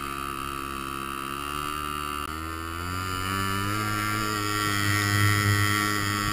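Quad bike engine running under load while towing, picking up revs about two and a half seconds in and then holding at the higher speed.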